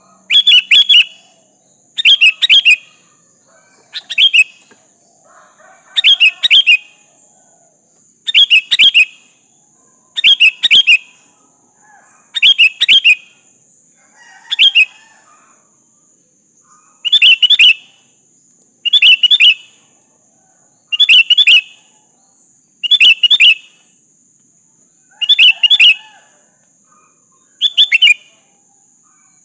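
Sooty-headed bulbul (kutilang) singing short, loud, bubbly phrases, each under a second, about every two seconds — fourteen in a row. A steady faint high hiss runs underneath.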